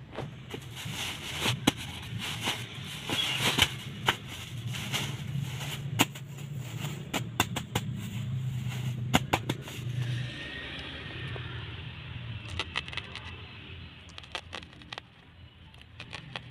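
Woven plastic sack filled with soil rustling and crackling as hands shift it and press it flat on the ground, with many sharp taps and pats, most of them in the first ten seconds.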